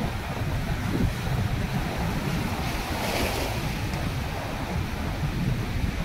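Sea waves surging and breaking against large rocks, white water rushing through the gaps between them, with a louder wash of spray about three seconds in. Wind buffets the microphone underneath.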